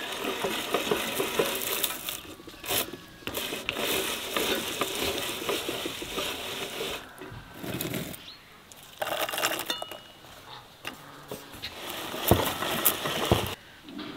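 Hand-cranked metal meat grinder grinding walnuts: crunching and metallic rattling as the crank turns, in three spells with short pauses between them.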